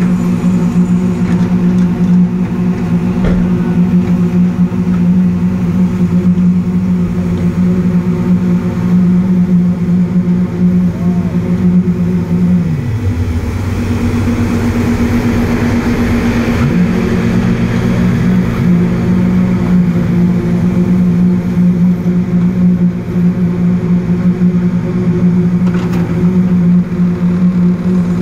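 Heavy diesel construction machinery running steadily at close range: the engines of a slipform concrete paver and a tracked excavator, with a steady low drone. About halfway through, one engine's note drops low and then comes back up a few seconds later.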